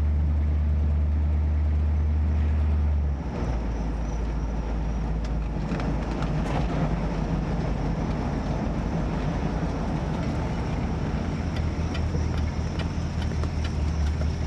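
The 1967 Buick Riviera's V8 engine and road noise heard from inside the cabin while driving: a steady low drone whose note drops about three seconds in, then a steady rumbling run.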